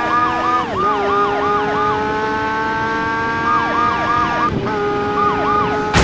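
Police siren in a fast yelp, its pitch sweeping up and down about four times a second over a steady held tone, in three runs with short breaks.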